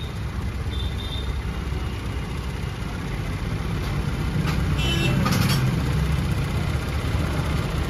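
Small four-stroke scooter engine idling steadily while its carburettor is adjusted by hand for fuel economy (mileage setting). The engine note swells a little about halfway through, then settles.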